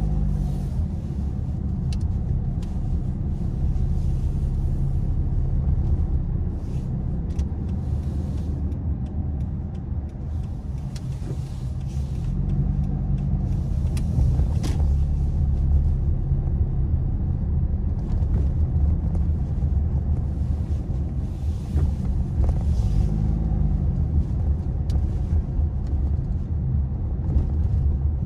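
Car driving, heard from inside the cabin: a steady low rumble of engine and road noise, with the engine note rising and falling a few times as the car pulls away and slows.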